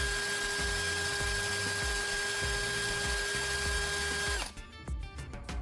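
Electric drill running steadily with a constant whine and hiss, spinning a carbon rod against sandpaper to grind its tip to a point. It stops about four and a half seconds in, leaving background music with a steady beat.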